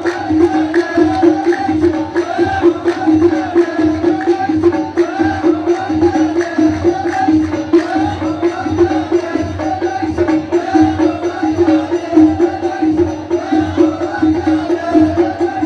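Live Amazigh ahwash music from the Souss: a fast, steady beat of frame drums and hand percussion under a repeating melodic line, played without a break.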